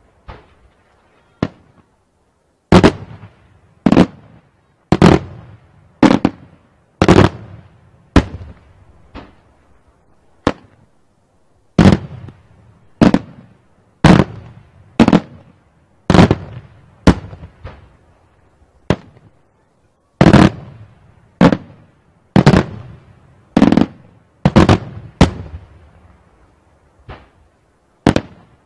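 Daytime aerial firework shells bursting in a steady run of sharp bangs, roughly one to two a second, each with a short echoing tail.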